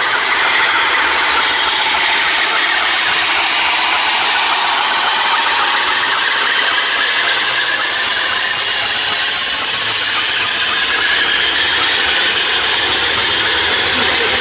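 Railway turntable turning with an FS 625 steam locomotive aboard: a loud, steady mechanical running with a high hiss over it.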